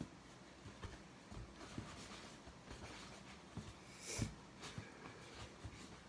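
Faint, scattered soft crackles and taps of a cleaning sponge being handled, with one louder brief rush of noise about four seconds in.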